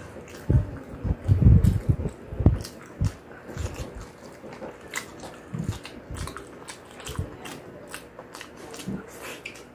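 A person biting and chewing fried chicken, with wet mouth sounds and sharp little crunches in an irregular rhythm; the bites are heaviest about one to two and a half seconds in.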